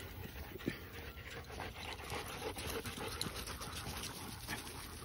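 German Shepherd dogs panting quietly close by, with faint scattered rustles of dry leaves underfoot.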